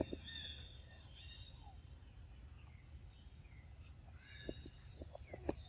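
Faint outdoor ambience over a low rumble: a few short, high chirping calls, mostly in the first two seconds, and a few light taps and rustles near the end.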